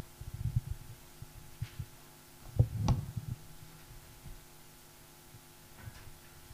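Handling noise from live handheld microphones being put away: a series of low thumps and rubs, the loudest about two and a half to three seconds in, over a faint steady hum from the sound system.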